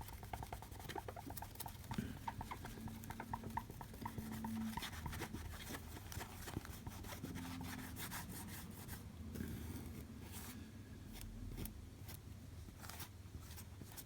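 A cloth wet with isopropyl alcohol rubbing and wiping over the bare iPhone LCD panel in short, irregular scrubbing strokes, clearing off leftover glue and Goo Gone residue.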